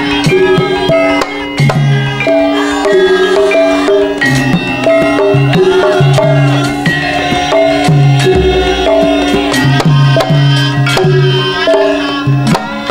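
Live Javanese gamelan music for a lengger dance: hand drums beat a busy rhythm over a repeating melody of struck, ringing notes. A deep low stroke comes about eight seconds in.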